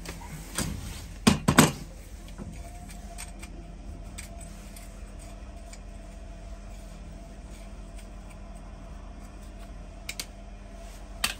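Sharp metallic knocks and clinks of plumbing work on pipe fittings, three loud ones within the first two seconds and two more near the end, over a steady faint hum.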